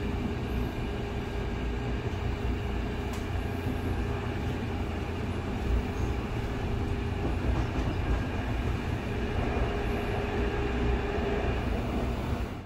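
Seoul Metro 2000-series electric train running on Line 2: a steady low rumble of wheels on track with a faint hum. It cuts off suddenly near the end.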